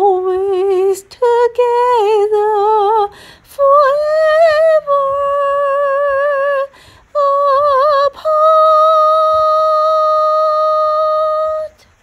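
A woman singing a slow melody unaccompanied, with vibrato, in several short phrases with brief pauses between them. It ends on one long held note of about three and a half seconds.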